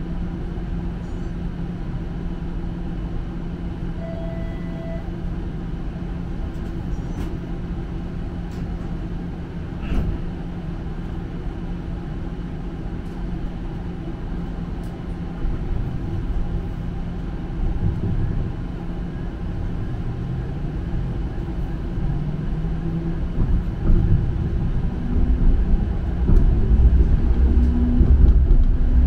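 TTC streetcar heard from inside, standing with a steady hum, then pulling away about halfway through: the motor whine rises in pitch and the low running rumble grows louder toward the end. A single knock about ten seconds in.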